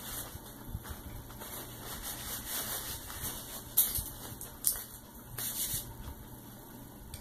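Paper napkin rustling as hands are wiped with it and it is crumpled, with two sharp rustles a little before and after the middle.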